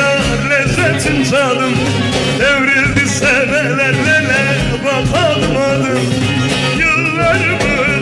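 Music from a Turkish song: a winding, heavily ornamented melody line over steady bass and accompaniment.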